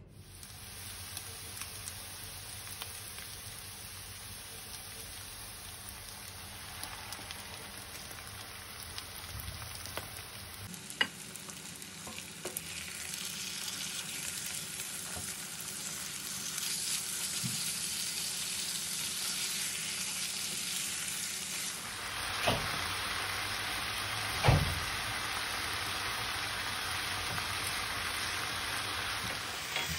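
Chicken livers and onions sizzling steadily in a frying pan as they are stirred, growing louder partway through, with a few sharp knocks.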